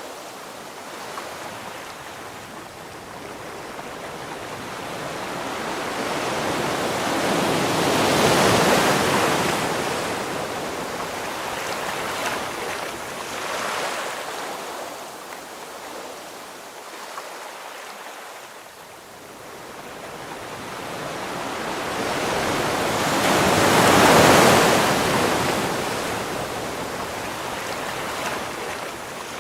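Ocean waves breaking on the shore, the surf rising to two big breakers about eight seconds in and again about twenty-four seconds in, with smaller wash between them.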